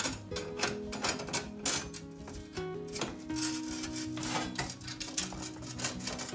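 Background music with steady held notes, over irregular light metal clicks and scrapes from a damper being fitted through a sheet-metal stove pipe.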